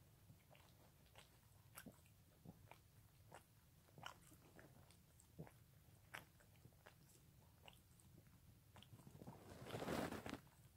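A Pekingese licking its front paw: faint, irregular wet lapping and tongue clicks. A louder rustle of about a second comes near the end.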